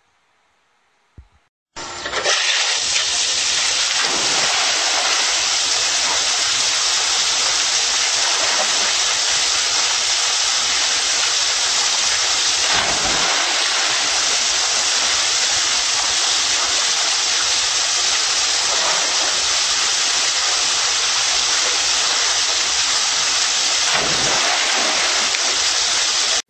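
A loud, steady rushing hiss that starts suddenly about two seconds in and cuts off abruptly at the end.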